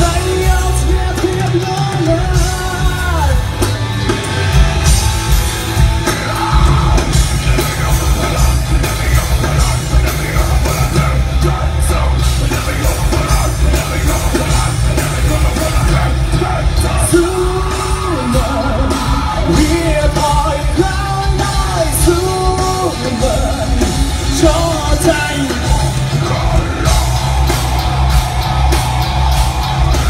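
Live rock band at a sound check, with electric guitars, bass and drums under singing and shouted vocals.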